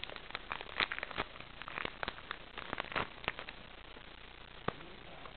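Trading-card pack wrapper crinkling and crackling as the cards are handled out of the freshly opened pack, busy for about three and a half seconds, then one sharp click near the end.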